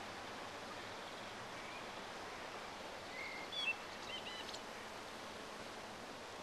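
Outdoor ambience: a steady faint hiss of background noise, with a few short, high bird chirps a little past halfway through.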